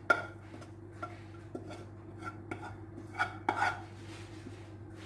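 Kitchen utensil knocking and scraping against a pan as cooked grated carrot is scooped out, a string of short knocks with the loudest about three and a half seconds in, over a steady low hum.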